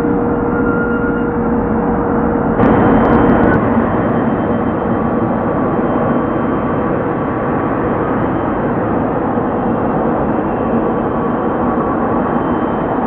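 Twin GE90 turbofans of a Boeing 777 freighter at taxi power: a steady jet rumble with a few held tones in it. About two and a half seconds in the sound jumps louder for about a second, with a few faint clicks.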